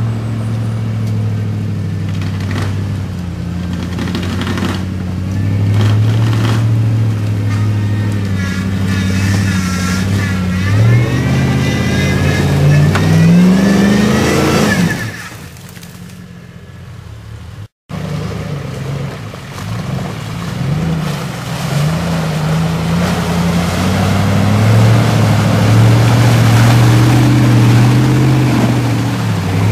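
Off-road vehicle's engine pulling hard at low revs, with the revs climbing from about 11 s to 15 s and then falling away. The sound cuts out briefly just before 18 s, and the engine then runs on under load.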